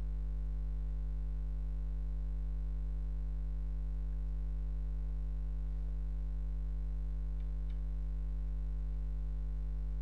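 Steady low electrical hum on the recording, with two faint clicks about seven and a half seconds in.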